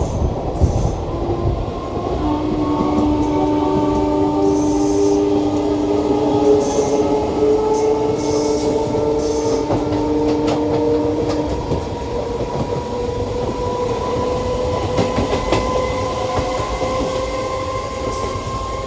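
Passenger train running along the track, heard from on board: a steady rumble with scattered wheel clicks over rail joints, under a long droning tone that rises slowly in pitch.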